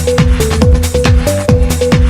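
Electronic dance music with a fast, steady kick-drum beat and a stepping synth melody.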